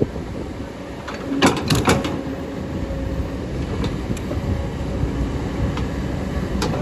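Kobelco excavator's diesel engine running steadily with a faint steady whine, and a quick run of metal clanks about one and a half to two seconds in, with another clank near the end.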